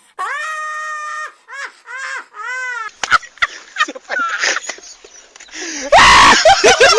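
A high-pitched vocal sound effect, a long held wail followed by short rising-and-falling cries or laughs. About three seconds in it gives way to a noisier clip of scattered voices, with a loud outburst of shouting or laughter about six seconds in.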